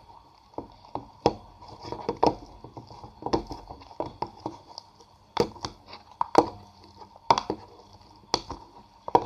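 Sticky homemade slime, activated with laundry detergent, being mixed and worked, giving irregular wet clicks and pops a few times a second.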